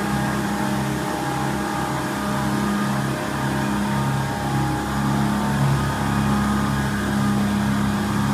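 Drive motor of a four-wheeled robot vehicle running steadily as it creeps along: a continuous low hum with a faint higher whine.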